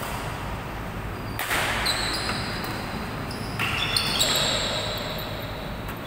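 Badminton rally: sharp racket hits on the shuttlecock about a second and a half in and again about three and a half seconds in, with players' shoes squeaking high and short on the court floor.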